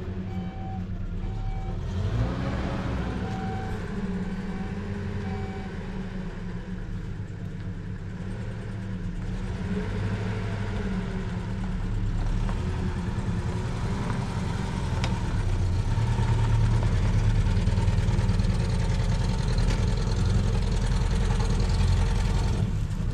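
An engine running steadily with a low hum, growing somewhat louder past the middle.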